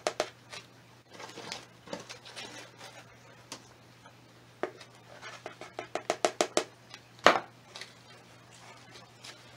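A plastic scoop digging into and scraping through a tub of gritty potting mix, and the mix pouring into a plant pot: runs of crisp scratches and clicks, with one sharper knock about seven seconds in. A faint steady low hum sits underneath.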